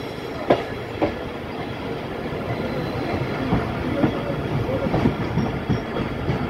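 Bahauddin Zakaria Express passenger train running on the rails: a steady rumble, with a few sharp clickety-clack knocks of the wheels over rail joints near the start.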